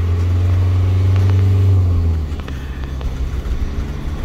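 Camper van engine running under way, heard from inside the cab as a steady low drone; it is loudest for about the first two seconds, then eases off a little.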